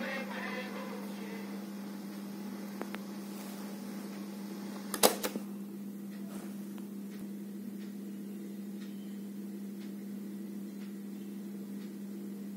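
Philips AM174 cassette player's speaker giving a steady low hum and tape hiss as the song's last notes fade out in the first second. About five seconds in comes a sharp mechanical clack as the player stops, followed by a few faint ticks.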